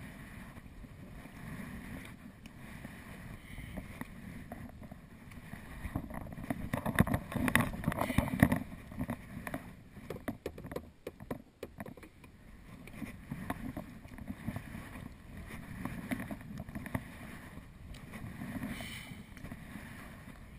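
Water splashing and lapping around a sea kayak, swelling and easing about every two seconds. There is a louder, busier stretch of splashing about six to nine seconds in.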